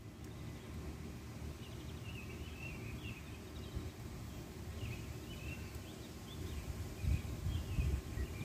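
Small birds chirping in short twittering runs, twice, over a steady low rumble.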